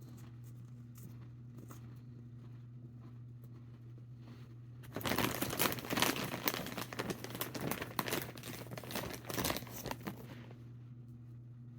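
A bag of strawberry kettle corn crinkling as it is handled, for about five seconds starting about halfway through, over a steady low hum.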